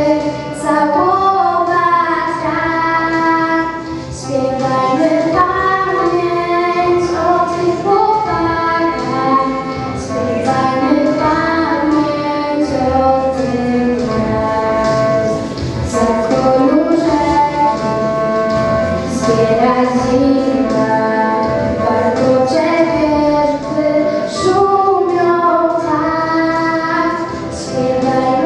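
A teenage girl singing a Polish song solo into a microphone, accompanied by acoustic guitar and keyboard. Her voice carries an unbroken melody that glides between notes.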